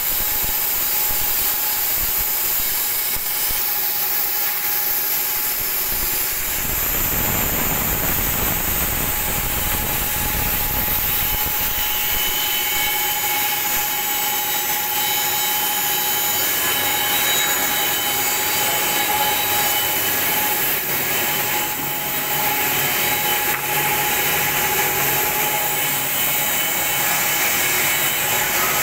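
Woodmaster WM-412 mini four-sided planer-moulder, with four cutter spindles, running with a steady high whine while planing boards fed through it. A rougher cutting noise joins about seven seconds in.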